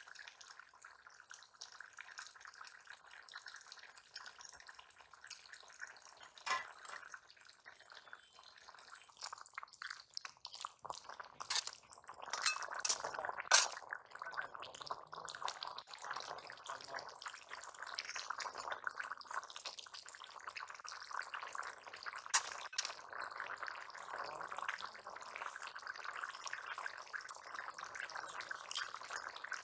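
Metal ladle stirring a watery curry in a large aluminium pot: faint liquid sloshing with a few sharp clinks of the ladle against the pot. A steady faint hiss grows stronger about twelve seconds in.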